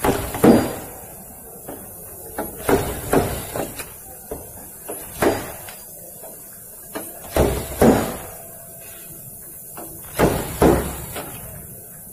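Knocking on a car's sheet-metal body panel with a hand tool as a dent is worked out: irregular sharp strikes, often two in quick succession, with pauses of a second or two between.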